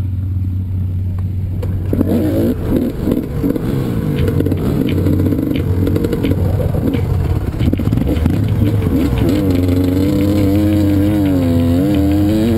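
Dirt bike engine being ridden hard, its pitch rising and falling as the throttle is worked. It is lower and steadier for the first couple of seconds, then revs up and down repeatedly.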